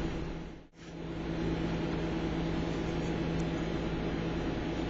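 Steady machine hum with hiss. The sound cuts out briefly just under a second in, then comes back.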